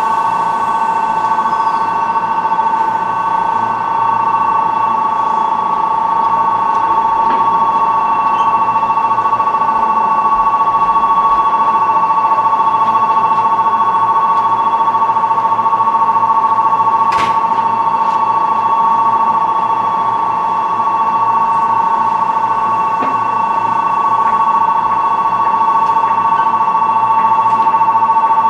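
Steady electrical whine in two close tones from the electric trains standing at the platform, running on without change, with one sharp click about two-thirds through.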